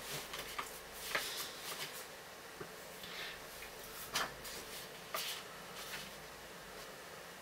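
Pages of a paperback book handled and turned: several short, crisp paper rustles about a second apart over a steady hiss of room tone.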